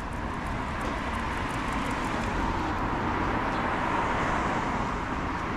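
A car passing on the street, its tyre and engine noise swelling gradually to a peak about four seconds in.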